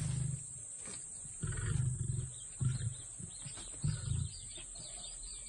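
A lion's low grunts, four short calls about a second apart.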